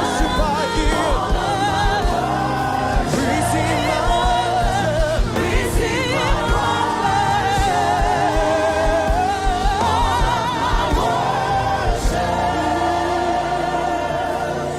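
Live gospel worship music: voices holding long, wavering sung notes over a band with a steady drum beat.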